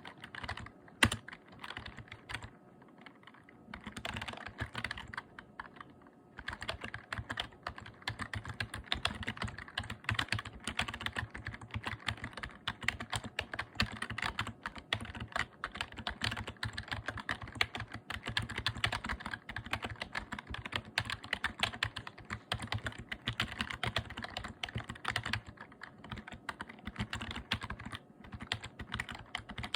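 Typing on a membrane keyboard: a fast patter of key presses, sparse and halting at first with one louder click about a second in, then a steady continuous stream from about six seconds in.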